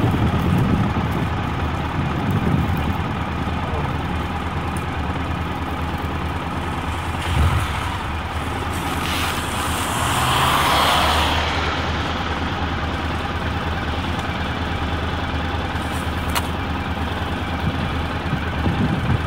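Honda motorcycle engine idling steadily in neutral. About ten seconds in, a car passing on the wet road adds a tyre hiss that swells and fades.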